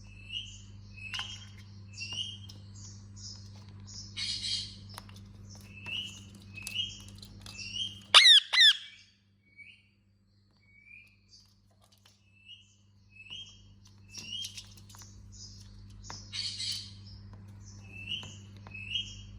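Indian ringneck parakeet chirping, a string of short repeated chirps with a few harsher raspy calls, and two loud shrill squawks about eight seconds in. A steady low hum runs beneath for most of it.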